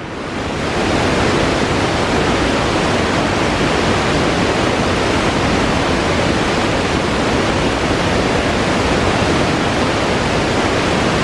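Osprey Falls, a tall waterfall, pouring onto boulders: a loud, steady rush of falling water that swells up over the first second.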